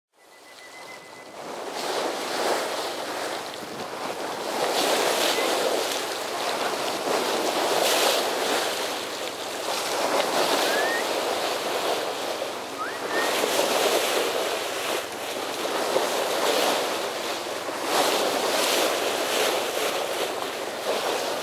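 Bow wave of a sailing ship rushing and splashing as the hull cuts through open sea, swelling every two or three seconds, with wind buffeting the microphone. It fades in over the first couple of seconds.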